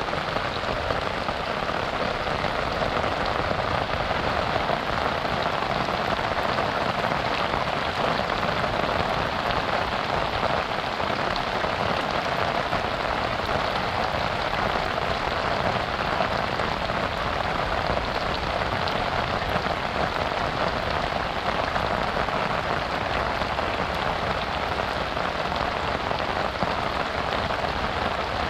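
Steady rain: an even hiss of falling drops that keeps up without a break.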